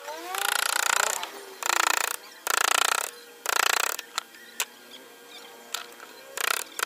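Claw hammer tapping a steel carving chisel into wood. The first few seconds hold short runs of quick blows. After that come a few single taps.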